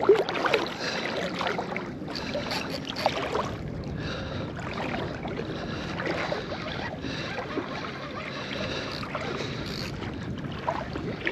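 Water sloshing and splashing, with wind on the microphone, during the fight with a hooked striped bass.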